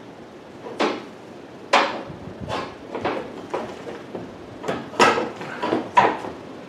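Spare-tire winch of a Ram 1500 being cranked by hand with the jack rod to lower the spare: a run of about ten sharp metallic clanks and clicks at uneven intervals.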